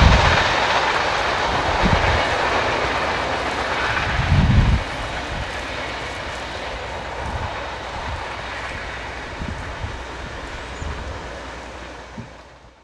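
A freight train moving away, its rail noise fading steadily, with a few low thuds, the loudest about four and a half seconds in. The sound then cuts off abruptly.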